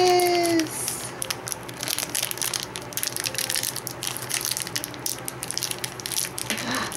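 A plastic blind-bag wrapper crinkling and tearing as it is pulled open by hand, a dense run of crackles. A voice holds a note for the first half second.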